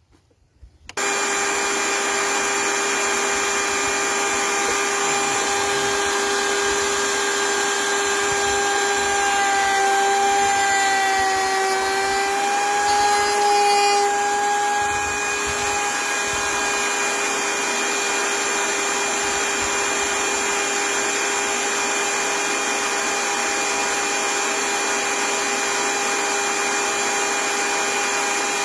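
A high-speed power tool running with a steady high whine, cutting wood. Its pitch sags briefly in the middle as it takes load, then steadies again.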